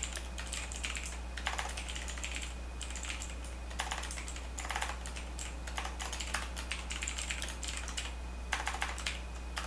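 Typing on a computer keyboard: quick runs of key clicks with short pauses between them, over a steady low hum.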